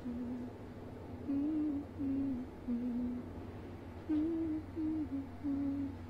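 A person humming a slow, low tune with the mouth closed: a string of short held notes stepping up and down in pitch.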